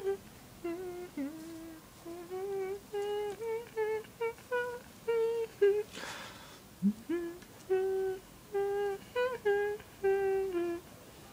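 A person humming a tune: a string of short, steady notes, one after another, moving up and down in pitch.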